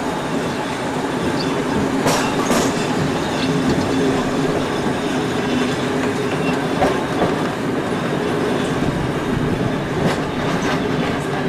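Running noise of a moving train heard from an open carriage window: a steady rumble with the wheels clicking over rail joints in pairs, about two seconds in and again near the end.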